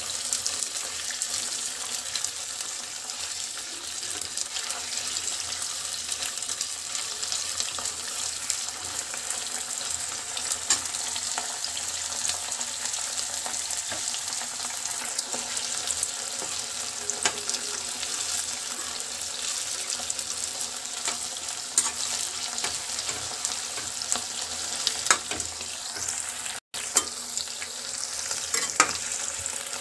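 Sliced onions sizzling in hot oil in a pan, a steady frying hiss, while a metal spatula stirs them with scattered scrapes and taps against the pan.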